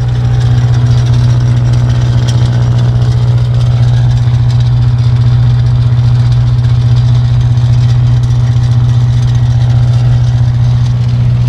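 Four-cylinder, naturally aspirated diesel engine of a 30 kW generator running steadily, heard close to its exhaust stack.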